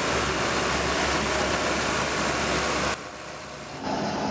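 Steady, loud machine roar that cuts off abruptly about three seconds in, followed by a quieter excavator engine running on a demolition site.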